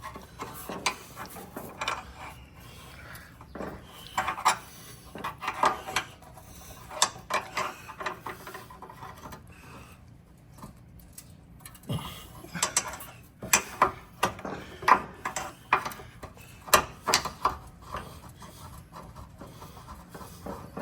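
Pry bar clinking and scraping against the exhaust hanger rods as a rubber exhaust hanger is worked off, in irregular metal clicks and knocks that come thick and fast in the second half.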